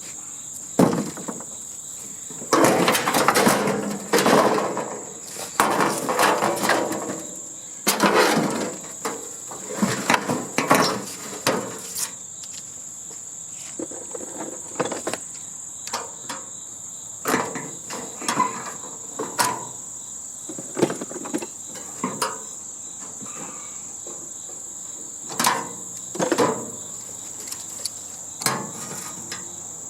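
Irregular metal clanks, knocks and scraping from hand tools at work on a heating and air-conditioning unit being dismantled for scrap, busiest in the first half and again near the end. A steady high-pitched drone runs underneath.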